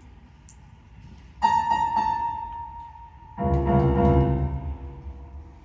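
Two loud struck musical chords opening an indoor winds ensemble's show, about two seconds apart: the first rings out and fades, the second is fuller with a deep bass and fades out near the end.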